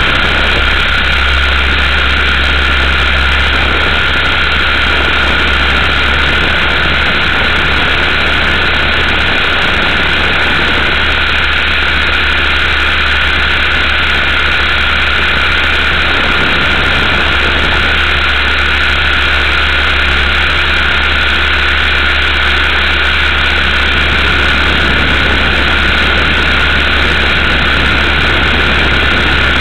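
Multiplex Funcopter's electric motor and propeller running steadily in flight, a constant whine heard close up from the onboard camera's microphone.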